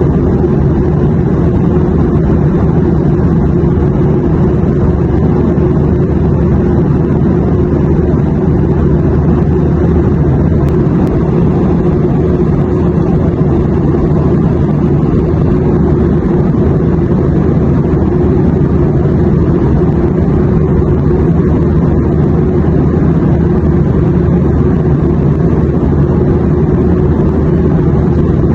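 Steady, unchanging drone of an airplane in flight, with most of its weight in a deep rumble.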